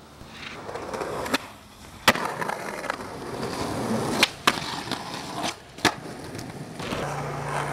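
Skateboard wheels rolling on concrete, with five sharp clacks of the board striking the ground, the loudest about two seconds in.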